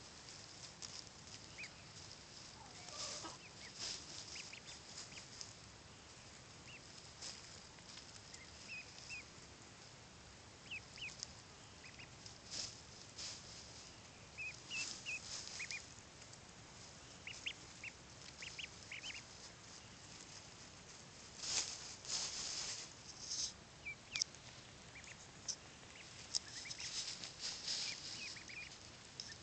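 One-week-old Blue Swedish and Buff ducklings peeping: short, high chirps scattered throughout, with brief hissy rustles in between, loudest about two-thirds of the way through.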